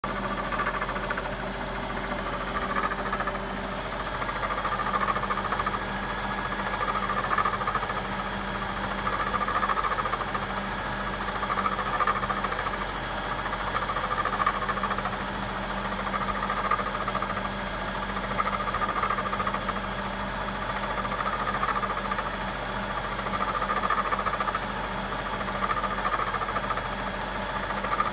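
2007 BMW 750i's 4.8-litre V8 idling steadily, with an unexplained strange noise: a higher sound that swells and fades about every two and a half seconds over the steady hum of the engine.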